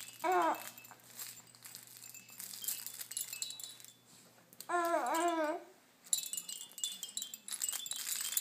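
A baby coos twice: a short falling coo right at the start and a longer wavering one about five seconds in. Between and around them a hand-held baby toy jingles with bright, repeated chiming.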